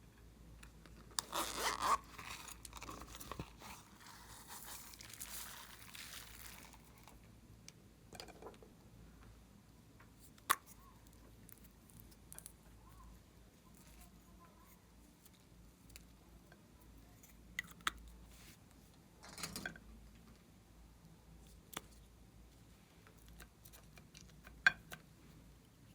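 Handling sounds of slime-making: a few seconds of tearing, crinkling noise about a second in, then scattered light clicks and taps.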